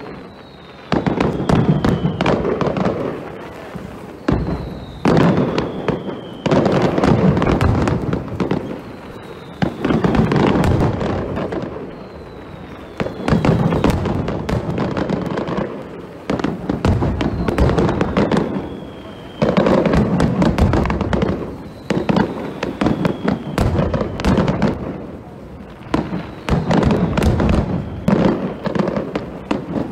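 Aerial firework display: shells bursting one after another, a boom every couple of seconds followed by crackling. A thin falling whistle recurs every few seconds.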